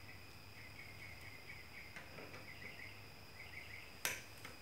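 Faint insect chirping in the background, with one sharp click about four seconds in as the metal rocker-arm parts are handled.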